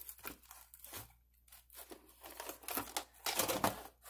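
Small plastic VHS clamshell case being opened and the cassette lifted out: a scatter of plastic clicks and crackles, the loudest cluster a little past three seconds in.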